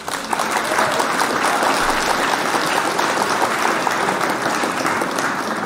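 A crowd applauding, played in as a recorded sound effect: it starts abruptly, holds steady, and eases off slightly near the end.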